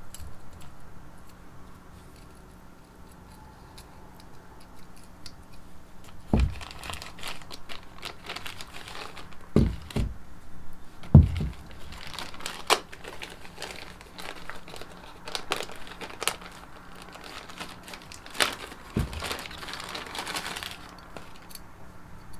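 Hand work on small engine parts: crinkling and rustling with scattered small clicks and a few dull knocks, starting about six seconds in.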